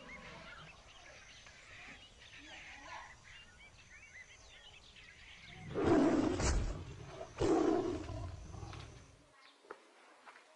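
Two loud, harsh animal calls, about six and seven and a half seconds in, over faint chirping.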